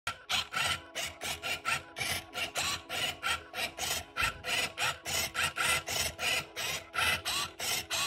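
Moyu cube robot's motorised grippers turning the layers of a 3x3 speed cube in quick succession, about three or four turns a second, each turn a short motor whirr ending in the click of the plastic cube layer snapping round.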